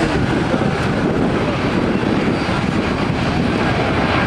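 Twin-engine wide-body cargo jet on its landing roll along a wet runway: a loud, steady rushing roar of the jet engines.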